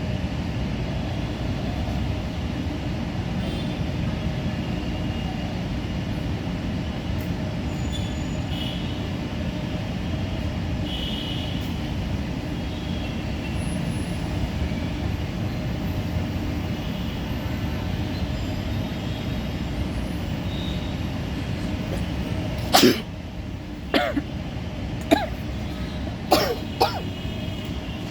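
A steady low background rumble, then about 23 seconds in a woman lets out a loud sneeze, followed by several short coughs and sniffs in quick succession.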